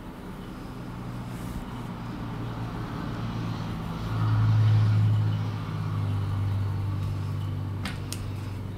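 A low, steady motor hum that builds up, is loudest about four to five seconds in, then eases off a little. A couple of sharp clicks come near the end.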